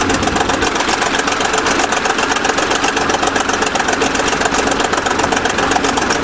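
A 20-ton bulldozer's diesel engine idling steadily up close, with a fast, even clatter.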